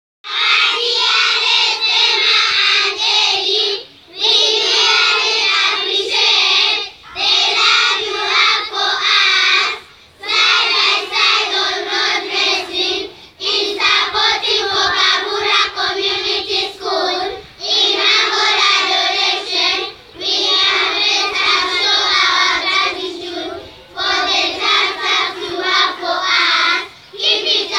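A large group of schoolchildren singing together in unison, in phrases of a few seconds with brief pauses for breath between them.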